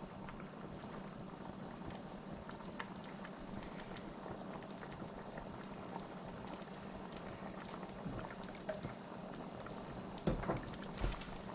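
Pot of stewed chicken simmering, a steady bubbling with many small pops and crackles. A few louder knocks come about ten seconds in.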